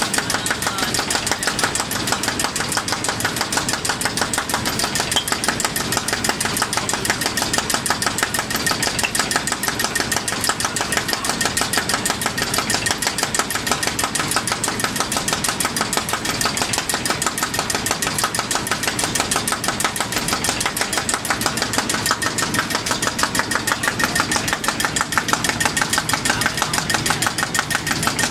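Rotary cap compression molding machine running at a steady speed, giving a fast, even mechanical clatter as its ring of molds turns and presses plastic bottle caps.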